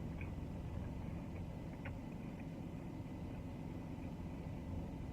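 Steady low rumble of an idling car engine heard from inside the cabin, with a few faint mouth clicks from chewing.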